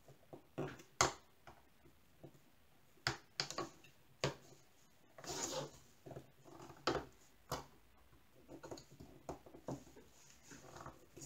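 Scattered light clicks and taps of thin wooden craft-box panels being handled and slotted together, with a short rub about five seconds in.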